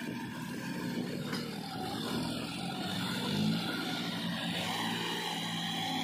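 Sonalika 35 DI tractor's three-cylinder diesel engine running under load as it pulls a trolley heaped with wet mud, with a brief rise in revs about three and a half seconds in.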